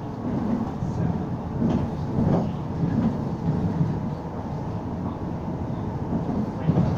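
Inside a moving bus: steady engine and road rumble, with a few knocks and rattles from the body and fittings.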